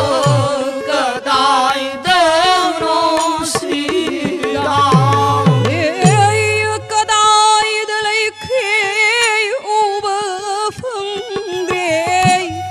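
Devotional harinam song: a woman's voice singing with heavy vibrato over violin and harmonium. A hand drum sounds a few deep bass strokes that slide down in pitch around the middle.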